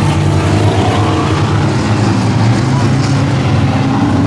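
Enduro race car engine running steadily under load, heard from inside the cabin, with tyre and chassis noise from the muddy dirt track.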